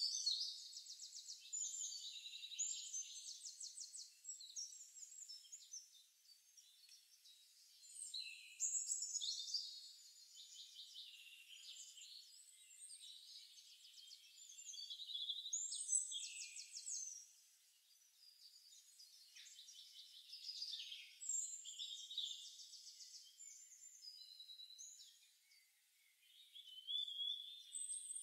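Songbirds singing in a forest, from a nature-sounds background track: high-pitched phrases of fast trills and chirps that come and go every few seconds.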